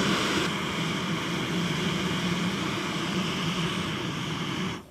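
Backpacking gas canister stove burning under a cook pot: a steady roar that cuts off suddenly near the end as the stove is turned off.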